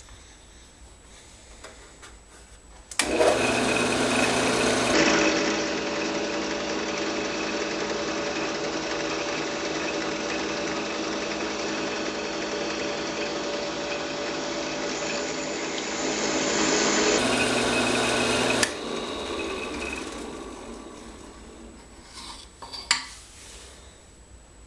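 Bench drill press running steadily while a needle-file bit grinds slots through small stainless steel tubes. It starts about three seconds in, stops near the end and dies away, and a single sharp click follows.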